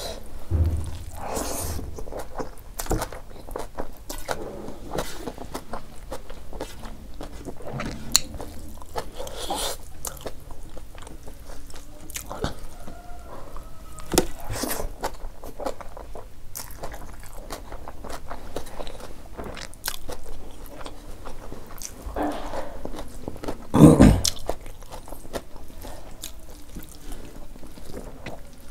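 Chewing and biting as a person eats a handful of rice, dal and greens, with fingers mixing the rice on a metal plate. One much louder sudden sound comes near the end.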